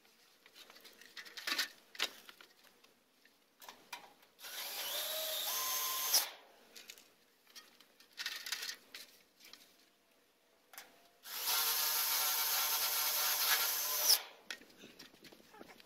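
Cordless drill driving screws through sheet-metal wall panels: two runs, the first about two seconds and the second about three seconds long, with the motor whine stepping up in pitch. A few short knocks on the panel come in between.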